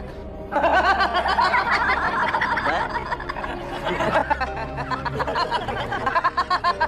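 A man laughing heartily over background music. The laughter starts about half a second in and breaks into quick ha-ha pulses near the end.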